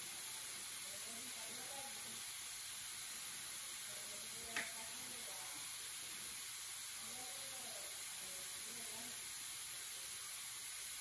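Steady hissing sizzle of steam from rags under three hot electric carpet seaming irons, heating seam tape into place. A single short click comes about four and a half seconds in.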